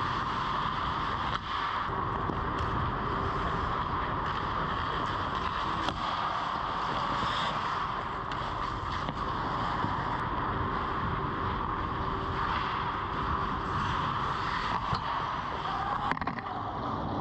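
Ice hockey rink ambience: a steady rushing noise with a few sharp clicks of sticks or pucks on the ice, one about a second and a half in, one near six seconds and one near the end.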